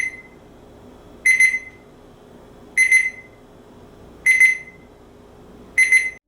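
Digital fridge thermometer's temperature alarm beeping. Five short bursts of high-pitched beeps come about one and a half seconds apart, each burst a quick cluster of beeps.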